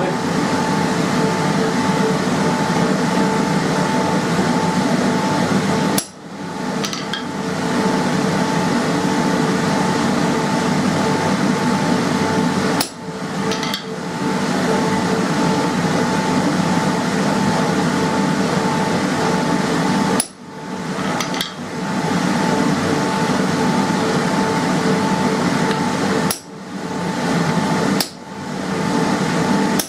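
Ball-peen hammer striking a hand-forged EN9 steel centre punch held on a steel block, single sharp blows several seconds apart and closer together near the end, testing whether the tempered tip holds. A loud, steady mechanical hum runs underneath.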